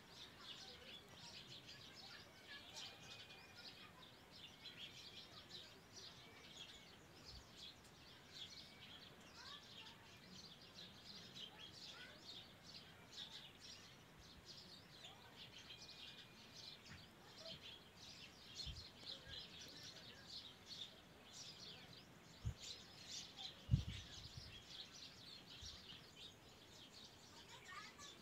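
Faint, busy chatter of many small birds chirping in the background. A few dull low thumps come in the second half, the loudest about three quarters of the way through.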